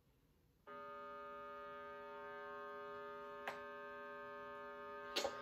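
A steady, unwavering drone tone on the note E, a reference pitch for tuning the double bass's E string, starting a little under a second in. A single click a little after halfway and a couple of small knocks near the end.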